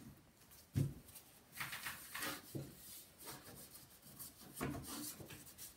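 Hand wiping and rubbing the plastic swivel base of a CRT monitor in several soft strokes, with one sharp knock a little under a second in.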